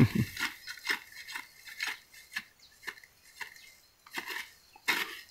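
Dry grass and stalks crackling and snapping as hands work through them at ground level. The short, irregular crackles come about two a second.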